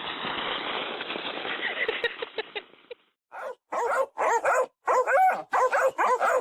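A steady rushing noise for about three seconds. Then a dog gives a quick series of short yipping barks, about two a second, each bending up and down in pitch.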